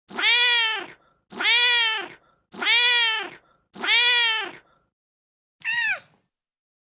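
Domestic cat meowing: four long, identical meows about a second each at a steady pace, then a shorter meow near the end.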